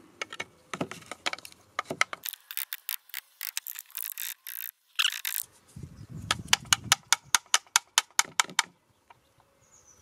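Hard plastic clicking and rattling as the dust-cup lid and small pleated filter of a handheld anti-dust-mite vacuum are handled and pulled apart. It comes as irregular clusters of sharp clicks, then a quick, fairly even run of clicks in the second half.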